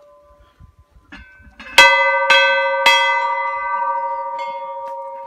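Hindu temple bell struck three times in quick succession, just under two seconds in, each strike clanging and leaving a long ring that slowly dies away. The fading ring of an earlier strike is still heard at the start.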